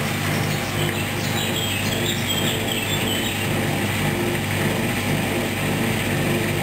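Hoover washing machine running a wash cycle with a duvet in the drum: a steady motor hum with a regular mechanical rattle about twice a second.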